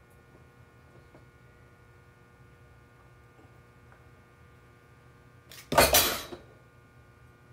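A low steady hum, then about five and a half seconds in one short, loud clatter lasting under a second: a frozen homemade popsicle dropping onto dishes and breaking apart.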